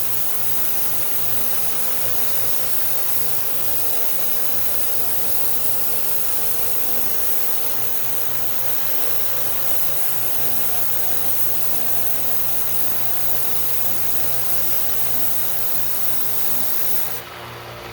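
1x30 belt sander running with a workpiece held against the moving belt, a steady motor hum under a loud grinding hiss. About a second before the end the hiss drops off as the work is lifted from the belt, leaving the motor running.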